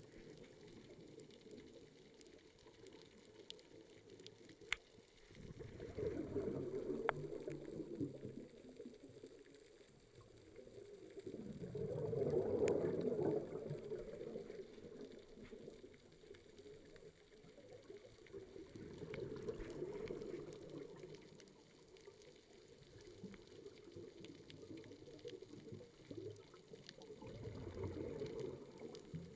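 Scuba diver's exhaled bubbles gurgling underwater, heard through the camera's housing, in four surges about seven seconds apart, the loudest around the middle. A few faint sharp clicks come in between.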